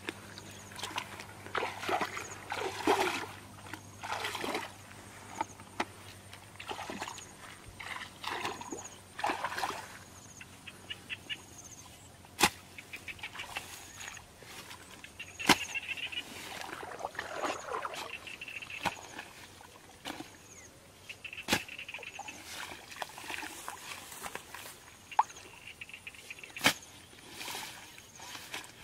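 Feet wading through shallow muddy water, sloshing and splashing irregularly, then about four sharp single knocks spaced several seconds apart as a hoe strikes the ditch bank.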